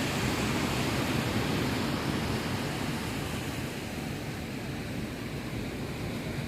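Sea surf washing onto a sandy beach, a steady rush of waves.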